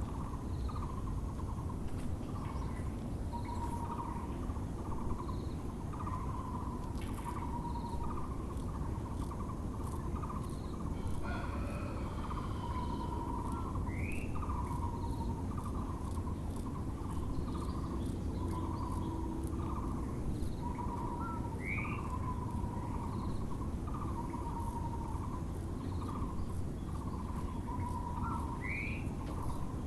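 Taiwan barbet (Muller's barbet) calling in a long, even series of repeated notes, about one to two a second, over a steady low background rumble. Now and then another bird gives a short rising chirp.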